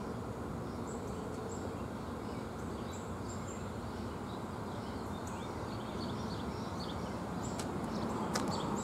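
Outdoor ambience: small birds chirping over a steady background hum, with a couple of sharp clicks near the end.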